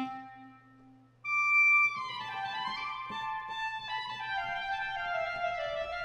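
Sampled solo clarinet from the Spitfire Symphonic Woodwinds library playing legato. A note dies away, then about a second in a loud high note is held briefly before a phrase of connected notes steps gradually downward.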